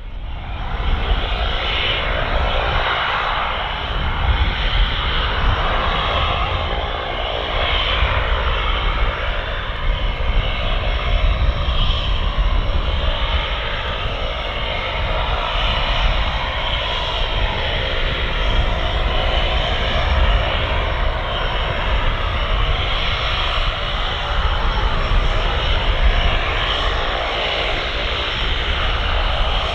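Cessna 208 Caravan's single Pratt & Whitney PT6A turboprop engine and propeller running steadily at taxi power as the aircraft taxis.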